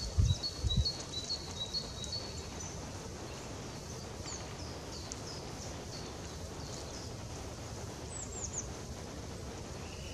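Small forest songbirds calling with high, thin chirps: a quick run of short notes in the first couple of seconds, then scattered falling chirps, over a steady low rumble. A few low thumps come in the first second.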